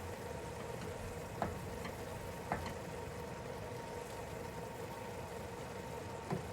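Tomato sauce cooking in a pan on the stove, a steady sizzling hiss with a faint hum, as it is stirred; the spoon knocks against the pan three times, about a second and a half in, near the middle and near the end.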